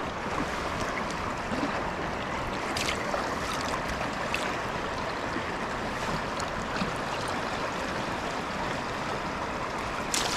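Fast, cold river current rushing steadily around the wader and the landing net, with a few brief sharp clicks of water, the last one louder near the end.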